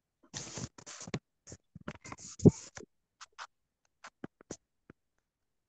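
Stylus scratching and rubbing on a drawing tablet in quick strokes as handwriting is erased, followed by a few separate light taps in the second half.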